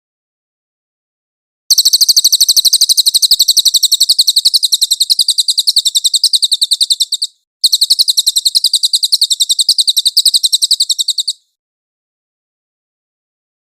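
Cililin bird song: two long runs of rapid, evenly repeated high, sharp notes, the first lasting about five and a half seconds and the second about four, separated by a brief break, with silence before and after.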